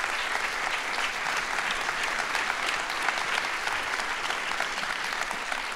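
Audience applauding: many hands clapping in a steady, dense patter that fades near the end.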